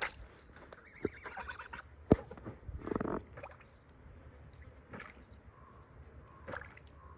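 Water splashing and gurgling in a bucket as white domestic geese drink from it, dipping their bills, with a brief goose call about a second in and a sharp knock a little after two seconds.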